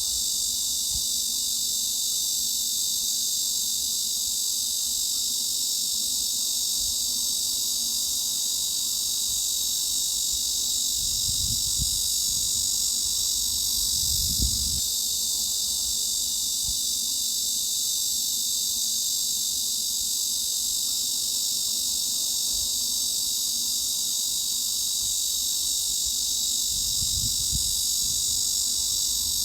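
Cicadas buzzing in a steady, unbroken high-pitched drone.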